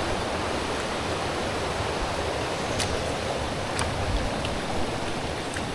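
Shallow river water rushing over rocks in a steady, even rush, with a couple of faint clicks about three and four seconds in.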